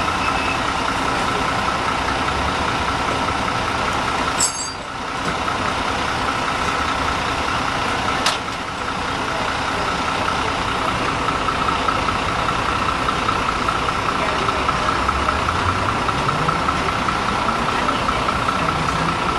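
A truck engine running steadily, with a steady high whine over it and the engine note rising a little near the end; two brief clicks about four and eight seconds in.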